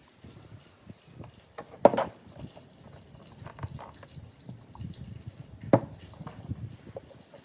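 Handling noises: two sharp knocks, about two and six seconds in, amid quieter scattered taps and rustling.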